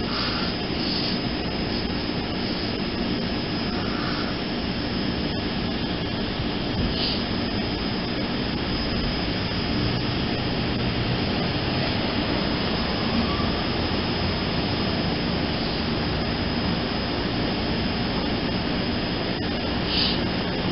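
Kawasaki LRV trolley standing at a stop, its equipment running with a steady drone.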